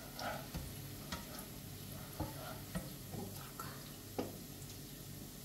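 Vegetables frying in oil in a frying pan, a steady sizzle with a few light knocks of a utensil against the pan.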